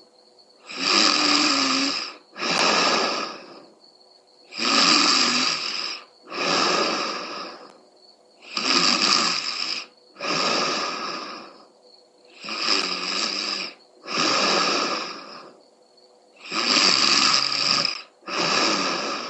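A sleeping woman snoring loudly: harsh, rattling snores in close pairs, five pairs about four seconds apart, with a brief hush between them.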